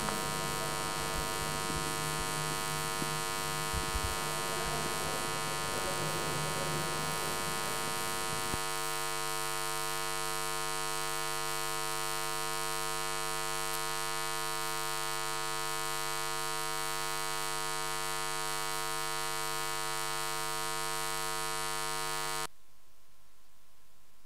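Steady electrical buzz from the audio feed, a dense stack of held tones, with faint room noise under it for the first few seconds; it cuts off suddenly near the end.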